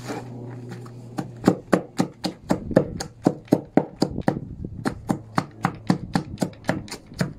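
Steel hand chopper (sechka) striking down repeatedly through cabbage and carrot into a wooden trough: a steady run of dull chops about three a second. The chops are sparse at first and settle into the rhythm about a second in.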